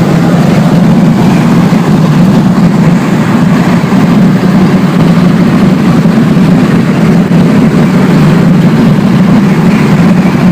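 Loud, steady noise of a moving vehicle, an even rumble that does not change.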